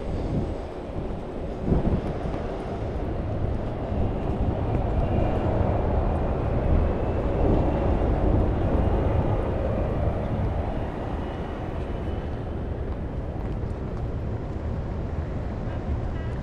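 City street traffic: a passing vehicle's engine and tyres rise to a peak over several seconds and then fade, with low thumps of wind buffeting the microphone near the start.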